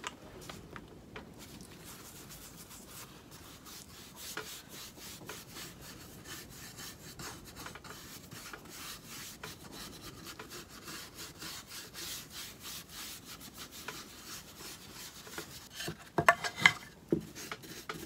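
Brush bristles scrubbing back and forth over a painted wooden cutout in quick, rasping strokes, with a few louder scuffs near the end.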